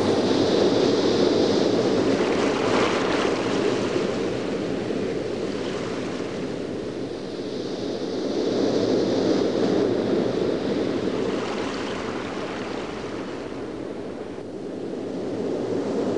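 A steady rushing noise like ocean surf, swelling and fading slowly, with no clear pitch.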